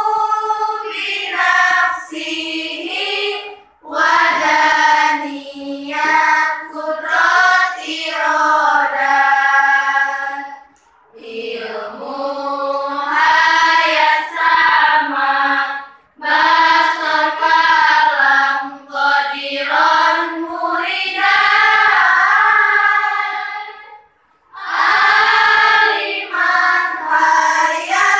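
A class of schoolgirls chanting a nadom, sung Arabic devotional verse, together in unison and unaccompanied. The chant runs in long melodic phrases, with four short breaks for breath.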